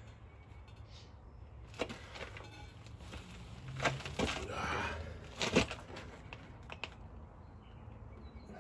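A few separate sharp knocks, about two, four and five and a half seconds in, with a brief scraping rub in the middle: a heavy truck brake drum being handled and worked into place over the relined shoes.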